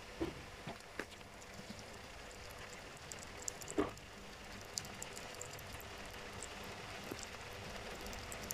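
Sugar glider chewing a piece of edamame: faint, wet, crackly smacking clicks, scattered and irregular, with a few sharper ticks, the loudest a little under 4 seconds in.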